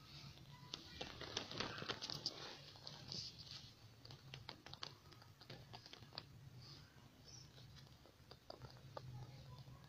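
Faint rustling and crackling of dry straw with scattered sharp little clicks, busiest in the first few seconds and again near the end, over a faint steady low hum.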